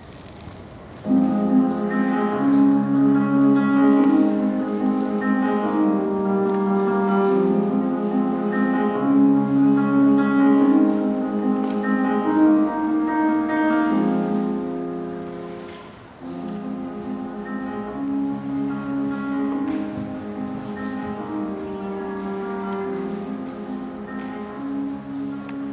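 Instrumental background music that starts about a second in, fades briefly around sixteen seconds in, then carries on.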